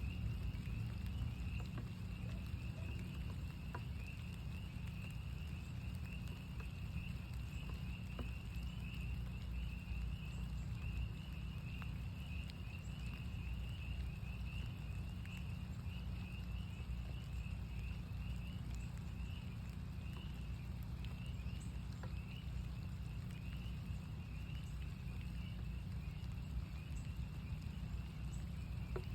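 A chorus of northern spring peepers: many high, short peeps overlapping into a continuous shrill band. Under it run a steady low rumble and scattered light taps of rain.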